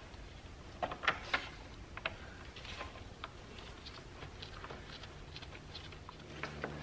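Scattered light clicks and taps of hand work at a car battery as the positive cable terminal is fitted back on, with a few sharper knocks about a second in.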